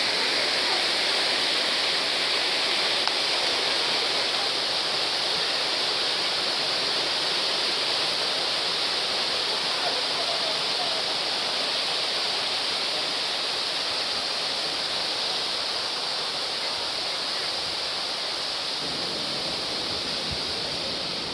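Valley stream water rushing over rocks in a steady, even rush that grows slightly quieter over time, with a low rumble coming in near the end.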